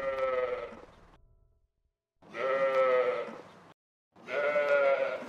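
Sheep bleating: three long, quavering bleats with short silences between them.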